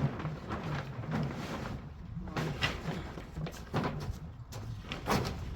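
Scraping and knocking from work on a concrete slab, over a low steady hum, with a sharper knock about five seconds in.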